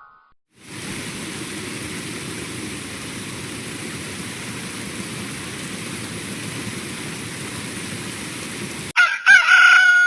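A steady, even hiss like rain or static starts about half a second in. It cuts off abruptly near the end, where a short sound with wavering, bending pitched tones takes over.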